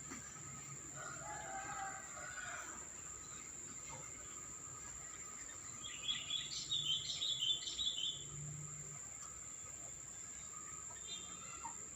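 Sooty-headed bulbuls calling: a loud burst of bubbly chattering calls starts about six seconds in and lasts about two seconds, with fainter calls before it, over a steady high insect drone.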